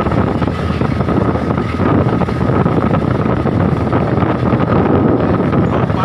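Traditional wooden trawler under way: its engine runs steadily beneath wind buffeting the microphone and the rush of waves along the hull.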